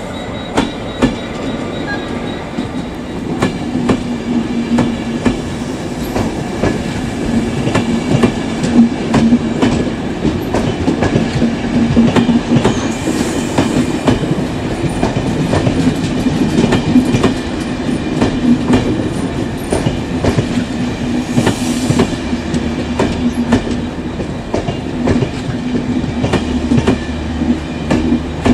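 Irish Rail Enterprise passenger train rolling slowly past on arrival, its wheels clicking over rail joints and pointwork, under a steady low hum. Two brief hisses come partway through, about eight seconds apart.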